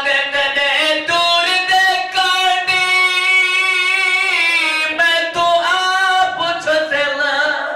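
A man's solo voice singing a Karbala lament into a microphone: long held notes sliding in pitch from one to the next, in phrases broken by short breaths.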